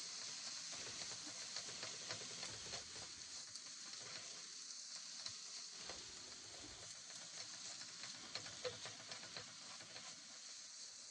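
Minced beef and onions sizzling in a frying pan on a gas hob, with a wooden spatula scraping and tapping against the pan as the mince is broken up and stirred.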